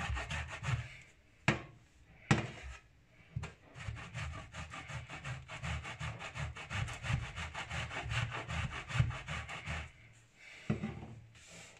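A block of Grana Padano cheese scraped up and down a stainless steel box grater: a long run of rapid, even rasping strokes. Two sharp knocks come a second and a half and two seconds in.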